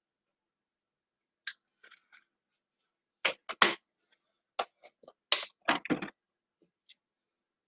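Sharp clunks and knocks of kitchen things being handled and set down, with a single click about a second and a half in and a loud cluster of clatters from about three to six seconds in.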